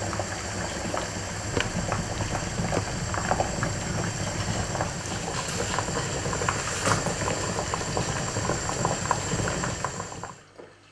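Saucepans of green beans and new potatoes at a rolling boil: steady bubbling with many small pops, cutting off near the end.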